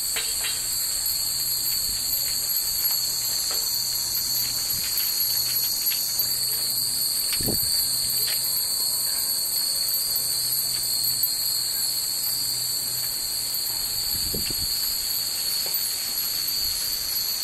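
Steady high-pitched buzzing of summer cicadas, with faint scattered tinkles of hanging furin wind chimes.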